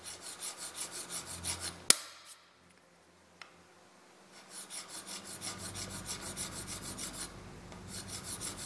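Fine flat file scraping across a small brass part held in a vise, in quick light strokes at about four a second, taking a little metal off one face so a threaded joint will line up. A sharp click comes just before two seconds in, the filing stops for about two seconds, then resumes.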